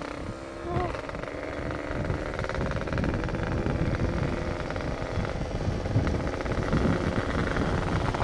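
Yamaha RX-King 135cc two-stroke single with a hollowed-out aftermarket exhaust running while being ridden. It gets louder over the first few seconds, then holds steady.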